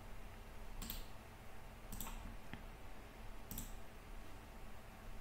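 Computer mouse clicking: three distinct clicks about a second or more apart, with a fainter one between, over quiet room background.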